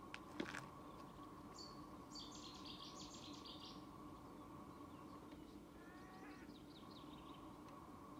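Faint songbird singing two short phrases of quick high notes, over a low steady hum, with a couple of sharp clicks just before the first phrase.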